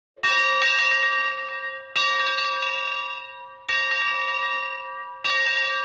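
A bell struck four times at an even pace, about every one and a half to two seconds, each strike ringing out with several pitches and fading before the next.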